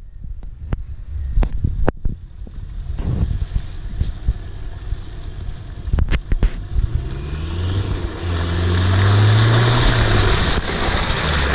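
Mitsubishi L200 pickup driving through deep mud, its engine revving with rising pitch and growing louder as it approaches from about seven seconds in, tyres churning the mud. A few sharp knocks come early on and again about six seconds in.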